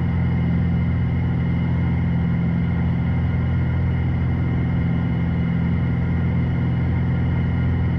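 Steady drone of a Piper PA-46 Malibu's piston engine and propeller during a climb.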